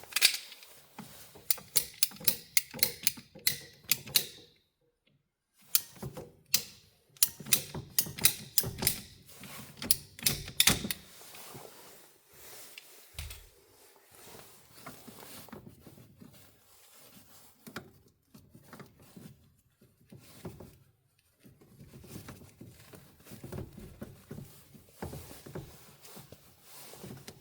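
Hand tin snips cutting sheet metal: a run of sharp, rapid snips that pauses about four seconds in, resumes, and stops about eleven seconds in, followed by quieter handling of the metal.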